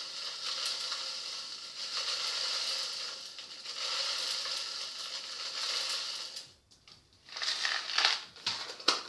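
Brown rock-candy (kandis) sugar being tipped from its crinkly packet into a Thermomix TM31 bowl: a steady rustling, crunching hiss for about six seconds, then a brief pause and several sharp clicks and taps near the end.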